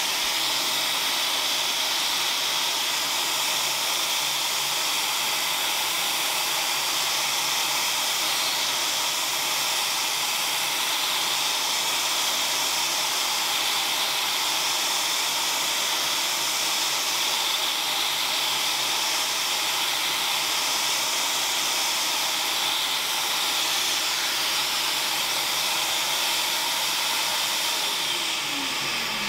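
Vacuum cleaner running steadily, a loud even rush of air through a model-railway ballast vacuum head as it sucks loose ballast off the track. Near the end it is switched off and the motor winds down with a falling whine.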